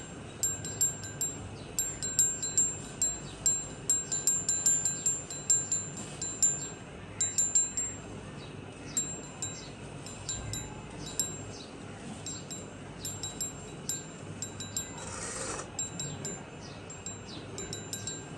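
Rapid, irregular high-pitched tinkling of small chimes, dense for the first eight seconds or so and then more scattered. A short burst of hiss comes about fifteen seconds in.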